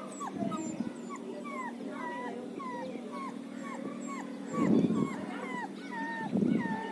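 German Shepherd puppy whimpering in a steady run of short high whines, about two or three a second, each bending in pitch. Two louder dull thuds come in the second half.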